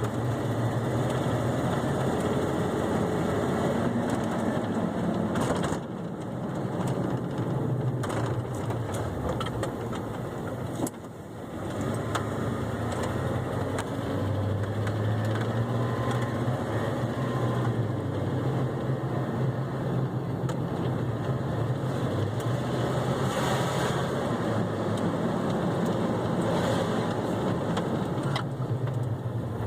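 Ford F-150 pickup engine running while driving, its note shifting with road speed and dipping briefly about eleven seconds in, with the ticking that the truck makes.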